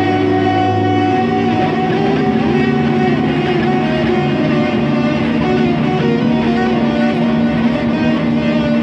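Experimental music: dense layers of sustained droning tones, with a low hum that drops out about a second in.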